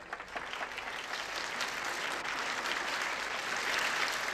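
Audience applause, starting sparse and swelling into dense clapping that is loudest near the end.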